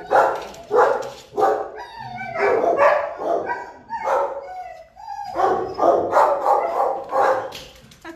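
Dogs barking repeatedly, the barks dying down near the end.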